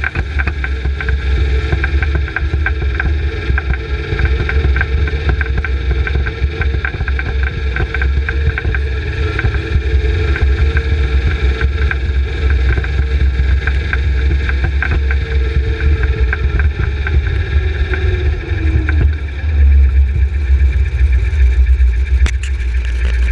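Engine running steadily with a deep rumble, its pitch dropping about three-quarters of the way through as it slows.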